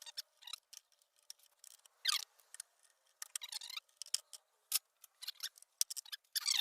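Scattered light clicks and scrapes from hand work on the snow blower's fuel line and its clamp, irregular and short with brief pauses between them.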